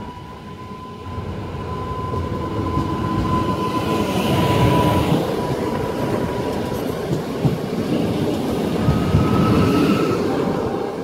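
Newag Impuls electric multiple unit running in along the platform: wheels rumbling on the rails, growing louder as the cars pass close by, with a steady high whine over the first several seconds.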